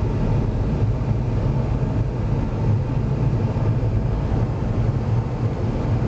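Car driving through deep snow, heard from inside the cabin: a steady low drone of engine and tyres, the car held in second gear.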